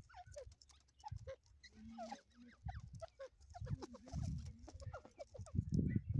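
Grey partridges (teetar) calling with short chirps and soft notes, repeated irregularly. Low rumbling thumps come and go, loudest toward the end.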